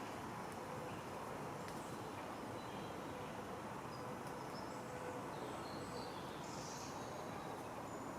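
Steady outdoor background noise with a few faint, high bird chirps in the second half.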